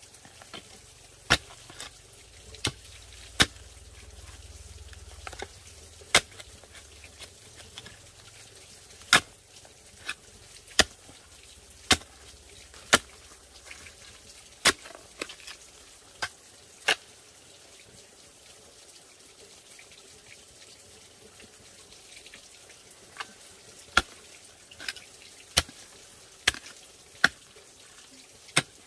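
Repeated sharp strikes of a hand tool, irregularly spaced about a second apart, with a pause of several seconds past the middle.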